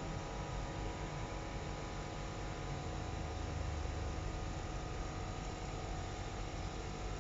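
Submersible electric waste-suction cleaner working underwater, its pump running with a steady hum and hiss.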